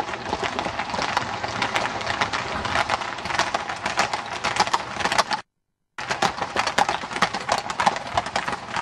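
Hooves of a group of horses clattering, a dense irregular run of sharp clicks, cutting out completely for about half a second midway.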